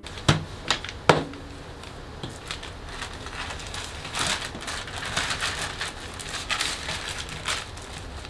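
Sheets of paper rustling and crinkling as a printed document is leafed through and handled on a desk, with a few sharp clicks in the first second.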